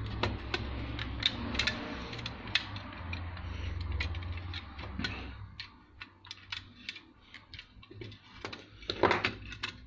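Repeated clicks and light rattles of a plastic sewing-machine foot-pedal housing and its metal contact parts being handled and adjusted, with a low steady hum through the first half that then stops.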